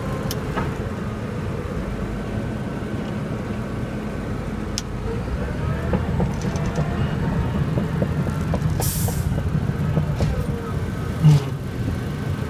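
Caterpillar D6T bulldozer's diesel engine running steadily, heard from inside the cab, with a few faint squeals and clicks and a short hiss about nine seconds in.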